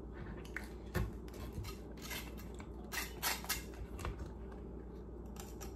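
A fillet knife slicing into a triggerfish's tough, leathery skin and flesh and scraping against the cutting board, in a few short, irregular scrapes and clicks.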